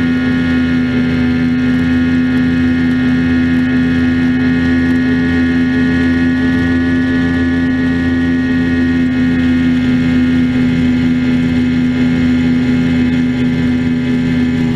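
Mercury 150 outboard motor on a bass boat running at a steady, high cruising speed, its pitch holding level throughout.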